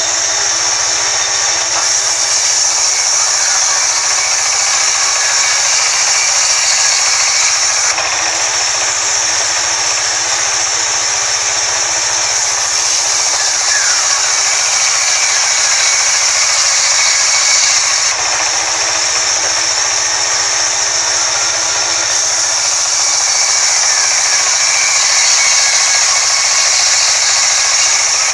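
Vertical band saw running while its blade rips lengthwise through a timber plank: a loud, steady mechanical noise with a strong high-pitched hiss.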